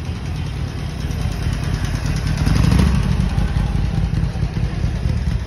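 Street traffic sound, led by a motorcycle engine running close by, growing loudest a little under three seconds in.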